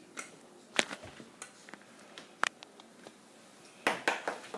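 Lego plastic pieces clicking and tapping as minifigures and bricks are handled: a few single sharp clicks spread out, then a quick cluster of taps near the end.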